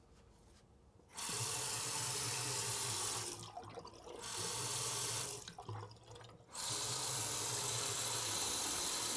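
Bathroom sink faucet running into the basin, turned on and off: three spells of running water with short breaks between them, and a low hum in the pipes while the water flows.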